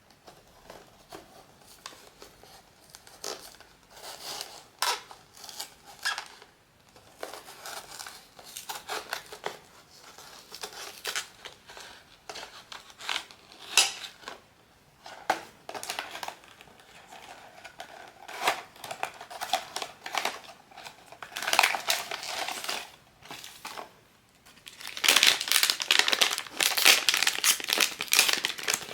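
Blind box packaging being unwrapped by hand: plastic wrapper crinkling and crackling in short bursts, growing into dense, louder crinkling near the end.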